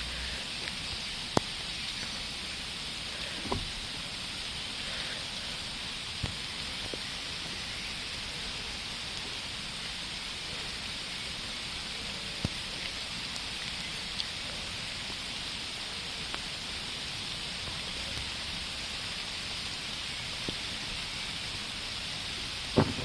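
Steady rain hiss with scattered sharp taps of drops. A loud crack of thunder breaks in right at the end.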